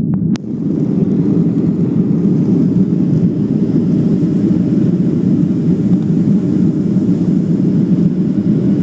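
Airliner engines running at takeoff power: a loud, steady low rumble with a hiss above it. A sharp click sounds shortly after the start.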